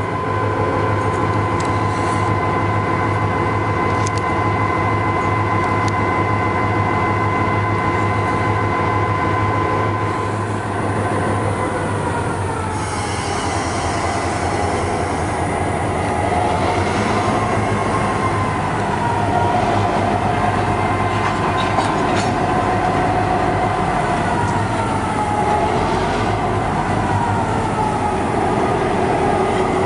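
South Shore Freight diesel locomotives rolling slowly, their engines a steady low rumble under a high squeal of wheels on rail. The squeal holds one pitch at first, then wavers up and down from about halfway through.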